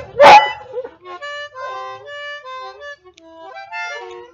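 A treeing walker coonhound gives one loud, short call at the start. A small harmonica then plays a string of short held notes that step up and down in pitch.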